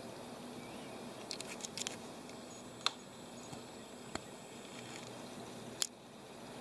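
Camera handling noise during a zoom: a quick flurry of small clicks about a second in, then three single sharp clicks about a second and a half apart, over a steady faint hiss.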